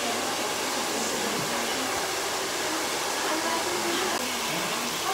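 Hair dryer blowing steadily, a constant rushing hiss, with faint voices under it.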